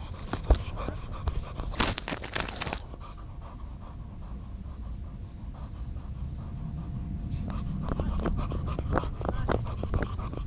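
A dog panting quickly right at the microphone of a camera worn on its collar, with a brief rustle of fur against the camera about two seconds in.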